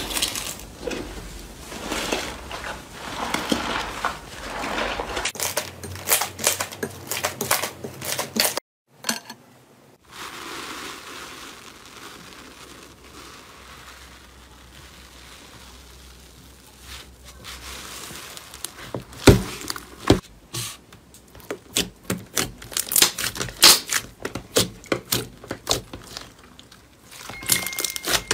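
Hands squeezing and pressing slime: a run of crackling and squishing, with many sharp popping clicks in the later part. The sound breaks off briefly about nine seconds in.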